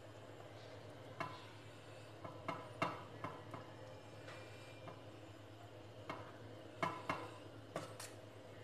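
A steel spoon clinking and scraping lightly against a stainless steel plate and bowl while spreading a mayonnaise filling on bread: a scattering of faint, irregular taps over a low steady hum.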